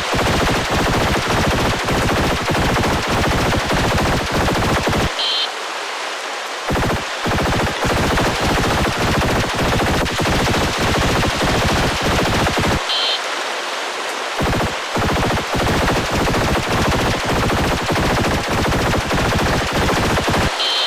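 Emergency alert alarm sounding for a hurricane: a loud, rapid train of harsh noise pulses. The pulses stop for a moment twice, and each stop opens with a short high beep.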